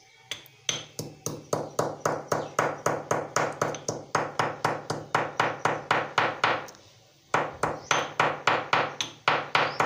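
Pestle pounding green cardamom pods in a small mortar: a steady run of sharp knocks, about four a second, with a brief pause about two-thirds through before the pounding resumes.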